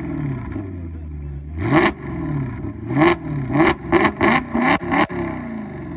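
Maserati GranTurismo's Ferrari-derived V8, exhaled through an X-pipe exhaust, idling and being blipped. One rev comes about two seconds in, then about six quick throttle blips in a row, each rising and dropping back to idle.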